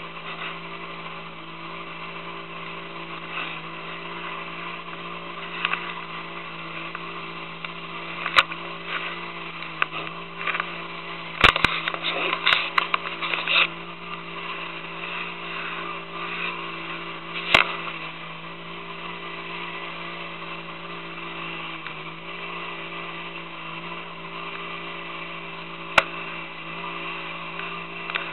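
Small motorboat's engine running steadily at one even pitch, with a few sharp knocks, most of them in a cluster about twelve seconds in.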